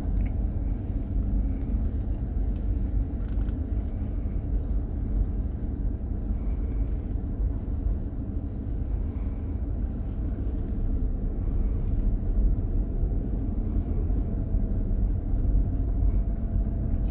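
Hyundai car heard from inside the cabin while driving slowly: a steady low rumble of engine and road noise.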